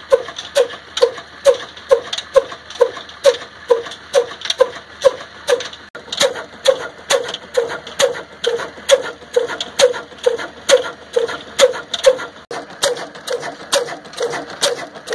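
Old Ruston Hornsby horizontal single-cylinder diesel engine running steadily, beating out an even rhythm of about two sharp knocks a second with lighter ticking from its valve gear between them.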